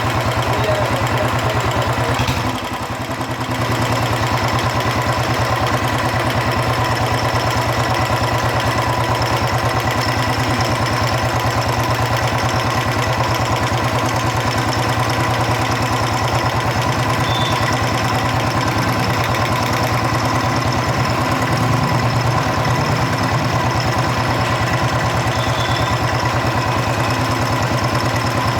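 Royal Enfield Electra 350's single-cylinder engine idling steadily, with a light valve-train tapping that keeps time with the engine. The mechanic puts the tapping down to a worn rocker arm. The engine's sound dips briefly about three seconds in.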